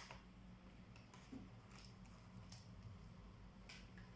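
Faint light clicks of plastic as a ThinkPad Edge laptop keyboard is unclipped and lifted out of its frame: a sharper click at the start, then a few softer ones spread through.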